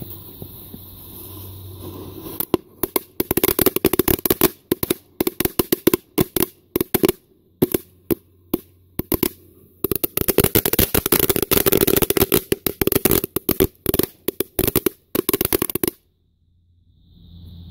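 A knetterlint crackling string, a 70 cm ribbon of tiny firecrackers, going off inside a hollowed pumpkin: rapid volleys of sharp pops with short pauses between, starting about two and a half seconds in and cutting off suddenly near the end.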